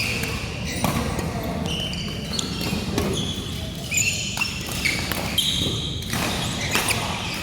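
Badminton rally in a large hall: rackets sharply striking a shuttlecock about every second, amid many short squeaks of court shoes on the floor.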